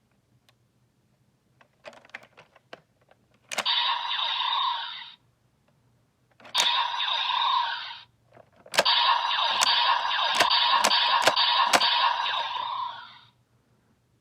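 A toy transformation belt, the Gotchardriver, playing electronic sound effects through its small tinny speaker in three bursts, the last one the longest, with sharp clicks running through it. A few light plastic clicks come just before, as the belt is handled.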